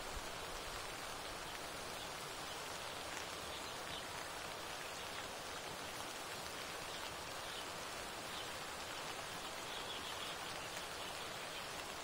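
Steady rain, an even hiss, with a few faint high ticks here and there.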